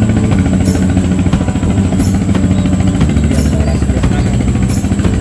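Background music with a steady beat over held bass notes that change in pitch.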